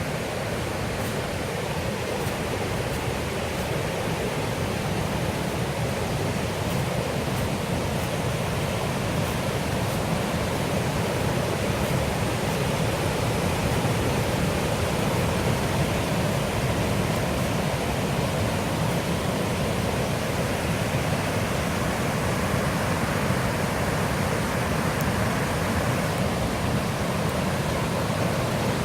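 River water rushing steadily, a loud, even wash of flowing water.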